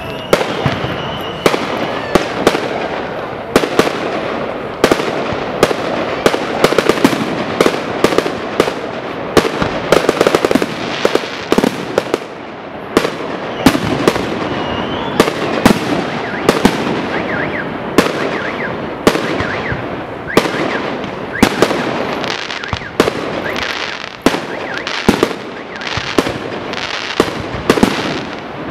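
Fireworks display of aerial shells bursting overhead: many sharp bangs in quick, irregular succession, often more than one a second, over a continuous crackle and hiss from the bursting stars.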